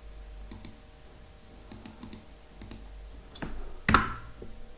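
Computer keyboard keys clicking in a light, scattered run, then one louder key strike about four seconds in as a terminal command is entered.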